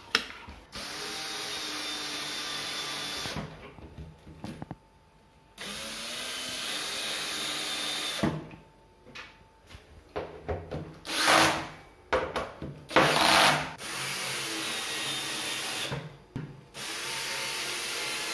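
Cordless drill-driver driving screws into a particleboard tabletop to fix plastic fittings: about four runs of steady motor whine, each two to three seconds long with short pauses between, and two brief louder bursts midway.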